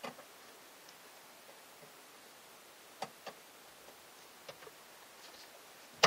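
Faint clicks of a plastic wire-harness connector being pressed onto the pins of a Bosch tankless electric water heater's control board: two sharp clicks about three seconds in, a few softer ones later, otherwise near silence.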